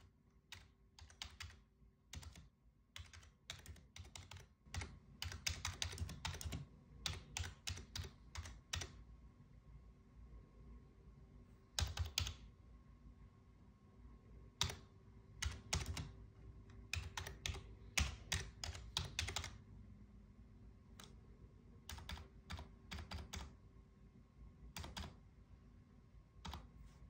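Keystrokes on a computer keyboard typing text, in quick runs of clicks with short pauses between words and phrases.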